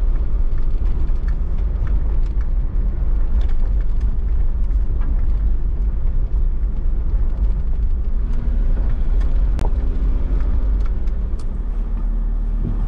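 Mercedes G-Class off-roader driving on a rough dirt track: a steady low engine and drivetrain rumble with scattered clicks and knocks from the bumps.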